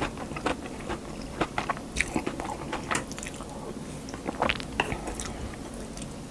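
Close-miked mouth sounds of a person chewing and eating spicy meat stew with rice: irregular chewing clicks and smacks, with a louder cluster about four and a half seconds in.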